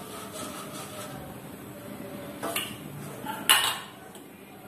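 Perforated stainless-steel steamer plate being rubbed with oil by hand, a soft rubbing, then the plate clinking twice against metal: a lighter knock about two and a half seconds in and a louder ringing clank about a second later.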